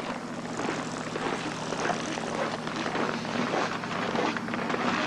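A steady engine drone with many small irregular crunching ticks over it.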